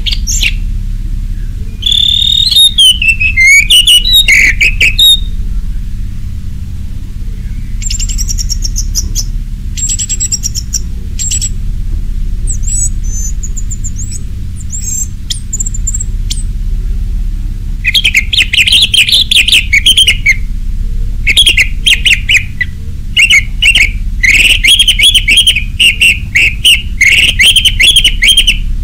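Orange-headed thrush (anis merah) singing a full, varied song. Loud phrases come a couple of seconds in, then softer, higher-pitched phrases, then from a little past the middle a long run of loud, rapidly repeated phrases. A steady low hum runs underneath.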